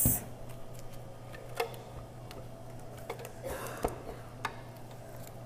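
A few scattered light taps and clicks as a wedge of hard aged Gouda is handled and set in place on a plastic wire cheese cutter board, the sharpest a little under four seconds in, over a steady low hum.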